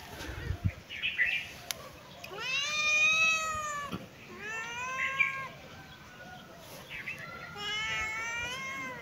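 Cat meowing: three long, drawn-out meows, each rising and then falling in pitch, the first and longest beginning a couple of seconds in.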